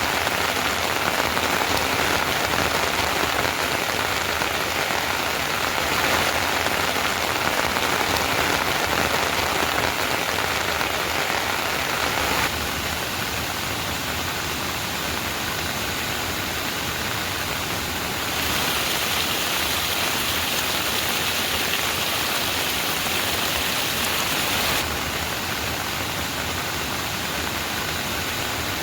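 Steady, heavy rain falling: a dense, even hiss that shifts abruptly in loudness and tone about twelve, eighteen and twenty-five seconds in.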